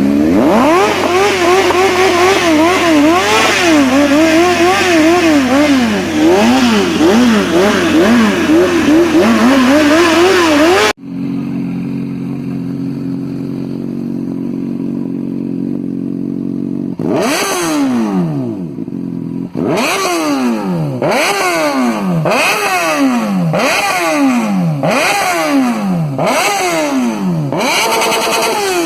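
Honda CBR 600F's inline-four running loud through an aftermarket sport exhaust. It is revved in quick blips, pitch jumping up and down, for about eleven seconds. After an abrupt break it idles steadily for about six seconds, then takes a series of sharp throttle blips, about one every 1.2 s, each revving up and falling back toward idle.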